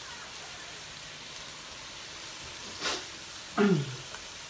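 Mala skewers sizzling faintly on a tabletop grill. About three seconds in comes a short breathy puff, followed by a brief vocal sound that falls in pitch from a person eating, the loudest thing here.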